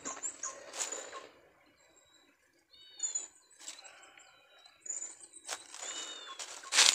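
Outdoor bird calls: the same short, arching chirp comes twice, about three seconds apart, over thin high whistles. A few sharp rustling clicks break in, the loudest near the end.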